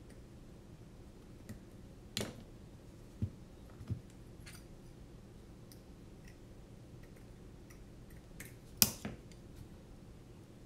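A handful of sharp, irregularly spaced clicks and taps from small hand work: an X-Acto hobby knife and fingers picking at electrical tape wrapped on a quadcopter's XT30 battery lead, the loudest click about nine seconds in.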